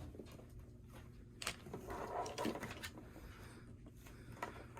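A few faint, sharp clicks and light knocks of small plastic toy pieces and packaging being handled.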